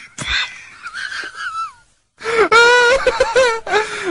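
A man in a helpless fit of laughter: a sharp gasp, faint whimpering, then after a brief pause a long, loud, high-pitched wailing laugh.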